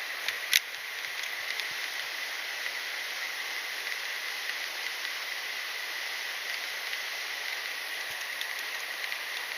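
Mountain stream rushing steadily, with a faint steady high tone over it. One sharp click about half a second in.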